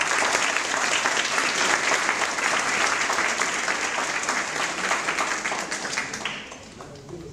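Audience and athletes applauding, a dense run of many hands clapping that dies away about six seconds in.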